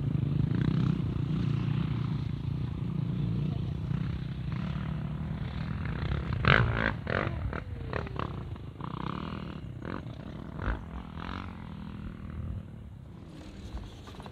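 Toyota Prado four-wheel drive on the move over sand and rough track: a steady low rumble of engine and tyres that eases off toward the end, with a quick run of knocks and rattles about six to eight seconds in as the vehicle goes over bumps.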